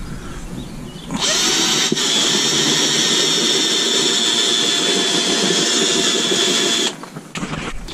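Cordless drill spinning up and drilling into a thin plastic storage box, running steadily for about six seconds with a high whine, then cutting off; it starts again briefly at the very end.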